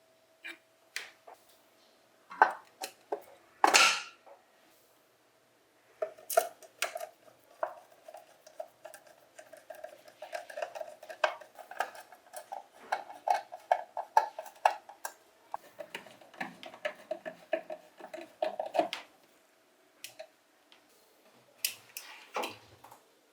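Small metal bench-grinder parts clinking and knocking as they are handled and fitted during reassembly. From about six seconds in comes a long run of rapid, light metallic clicks, and there are a few louder knocks near the end.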